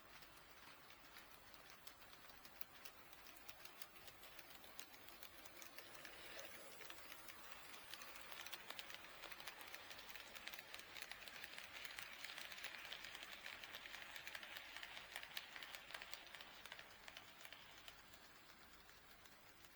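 HO scale model train rolling past on KATO Unitrack: faint, rapid clicking of its wheels over the rail joints, with a rolling noise that swells as it comes close, peaks in the middle and fades away near the end.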